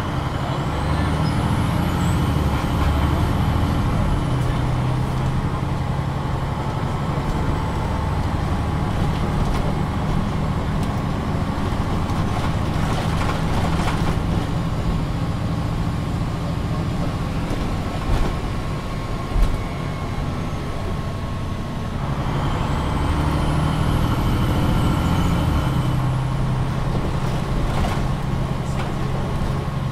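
MAN NG 313 articulated bus heard from inside on the move: the diesel engine pulls hard near the start and again after about two-thirds of the way through, with a quieter stretch between. Each time a high whine rises and falls. Two short knocks come a little past the middle.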